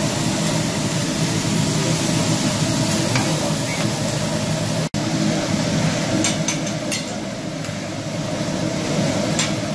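Meat and vegetables sizzling on a hot teppanyaki griddle as the chef stirs them, with a few light clicks in the second half. The sound cuts out for an instant about five seconds in.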